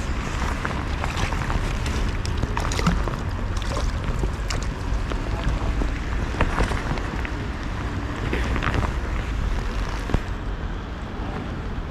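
Wind buffeting the microphone in a steady low rumble, with rain falling in many scattered taps and ticks.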